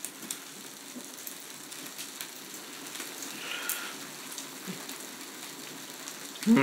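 Wild boar meat frying: a steady sizzling hiss with scattered small pops.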